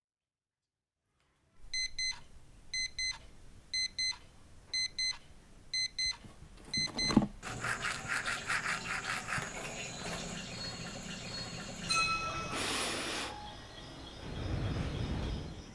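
An electronic alarm beeping in quick pairs about once a second, stopped with a knock about seven seconds in. Then a toothbrush scrubbing teeth with quick strokes, a short electronic tone and a hiss around twelve seconds in, and a low rushing sound near the end.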